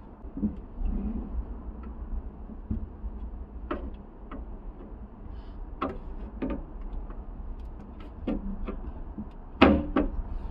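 Irregular light knocks and clicks of hard plastic being handled and worked on during the repair of a plastic fridge drawer, with a louder knock near the end.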